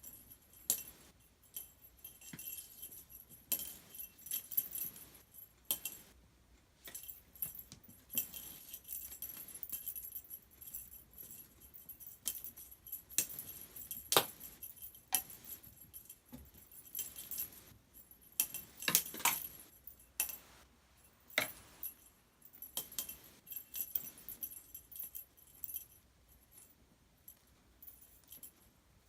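Small jingling cat toy shaken and batted about in irregular bursts, with its metallic jingle ringing high, and a few sharper knocks about halfway and two-thirds of the way through.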